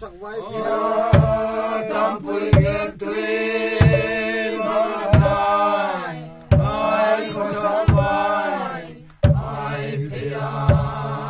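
A group of men and women chanting a traditional Vaiphei song in unison, with a drum struck once about every 1.3 seconds. The singing breaks off briefly about nine seconds in, then resumes.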